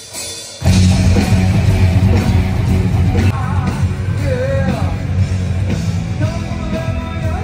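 A rock band kicks in together about half a second in, loud, with drums, bass and electric guitar, and a melody line sliding in pitch over the top.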